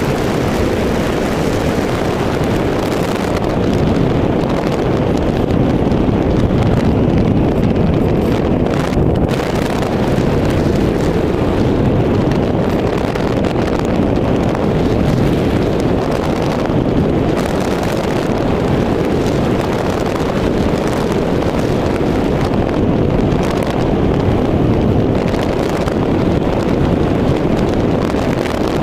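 Steady, loud rush of air buffeting the microphone of a camera riding on a flying RC model glider, swelling slightly now and then, with no engine or motor tone heard.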